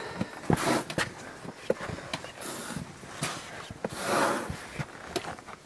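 Hikers' footsteps scuffing and crunching on a sandy, rocky trail, with scattered sharp taps and clicks in between.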